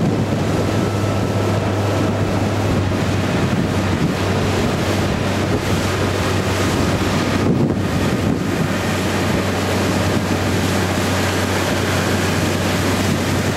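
Prototype Honda BF90 four-stroke outboard running with a steady low hum as the boat moves along, under heavy wind buffeting on the microphone and water noise.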